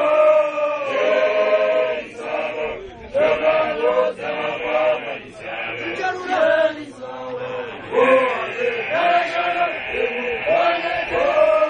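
Group of Basotho male initiates (makoloane) chanting together, long wavering held notes sung in phrases with short breaks between them.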